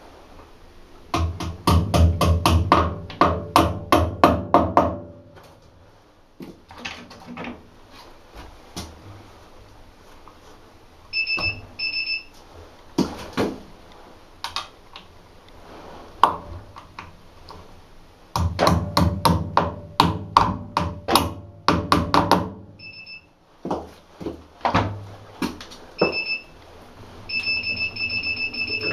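A hammer striking a tire and rim on a manual tire changer in two runs of rapid blows, about four or five a second, with single knocks between them. Short high electronic beeps sound a few times, and near the end a continuous high beeping starts.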